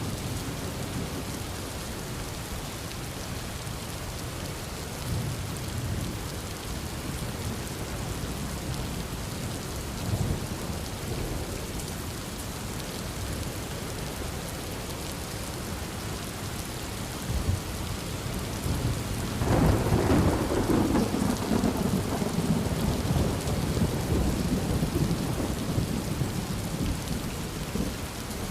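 Heavy rain falling steadily, with a loud rolling thunderclap breaking about two-thirds of the way through and rumbling on for several seconds. Softer low rumbles of thunder come earlier.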